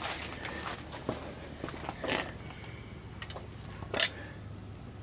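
Handling noises from hands working along a windshield frame and its urethane bead: soft rustles and light taps, with one sharp click about four seconds in, the loudest sound.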